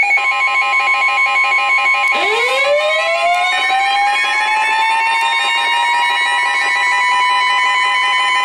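Warning alarm tones beep rapidly with a steady high tone under them. About two seconds in, a siren winds up from a low pitch and settles into a steady wail.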